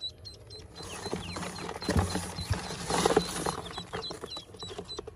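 Newly hatched Pekin ducklings peeping in short, high, repeated calls. From about a second in until past the middle, a louder rustling with clicks and knocks from handling covers them, then the peeping comes back clearly near the end.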